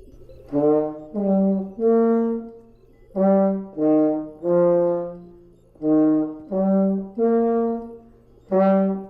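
Conch shells blown like horns, playing a brassy tune in repeated three-note phrases (two short notes, then a longer held one) over a low sustained note.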